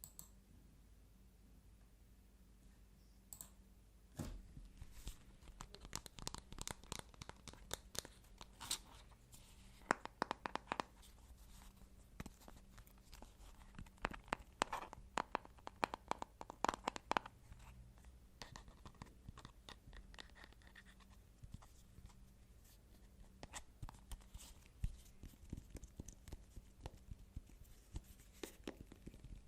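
Fingers and nails tapping and scratching on assorted objects close to the microphone, in quick, irregular runs of taps. Only a couple of isolated clicks come in the first few seconds, then the taps grow dense.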